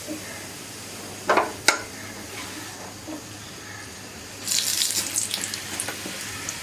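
Paratha shallow-frying in hot oil in a pan, a steady sizzle, with two sharp knocks about a second and a half in as it is turned over. The sizzle flares up louder for about a second past the halfway point, then settles back.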